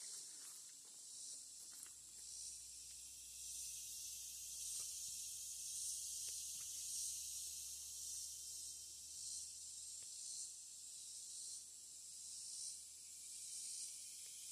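Faint high-pitched insect chorus, a steady trilling hiss that swells and fades in irregular pulses about every second.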